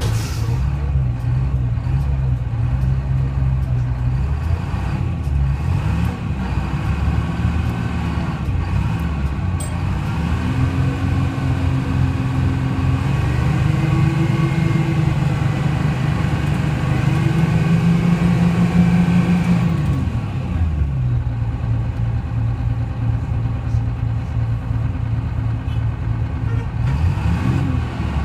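Detroit Diesel 6V71 two-stroke V6 diesel engine of a 1970-71 GMC New Look bus, running at a low steady speed, then rising in pitch in several stages for about fourteen seconds before dropping back to idle about twenty seconds in.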